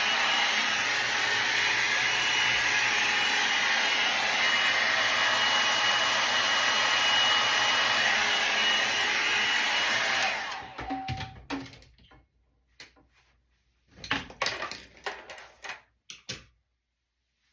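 Handheld hair dryer blowing steadily on heat over hair set in velcro rollers, switched off about ten seconds in; a few short clicks and rustles of handling follow.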